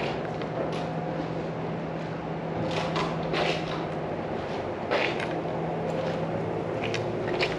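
Footsteps on concrete and a glass entrance door being opened and swung, with a few short knocks and scuffs, over a steady low hum.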